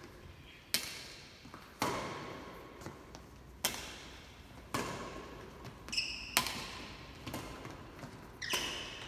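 Badminton rackets striking a shuttlecock back and forth in a rally, a sharp crack about once a second, echoing in a large sports hall. A brief high squeak about six seconds in.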